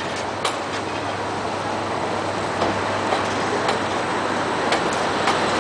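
Intercity passenger train's coaches rolling along the track, a steady rumble broken by irregular sharp clicks from the wheels passing over rail joints.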